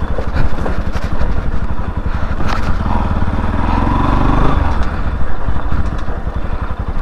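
Bajaj Pulsar NS200's single-cylinder engine running at low speed on a rough dirt track; the revs rise and then drop off about three to four and a half seconds in. Scattered clicks and knocks are heard over it.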